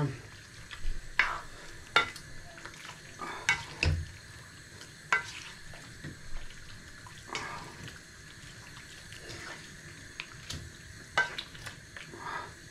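Stirring meat stewed with onion and dill in a kazan: irregular scraping strokes and clinks of the utensil against the pot.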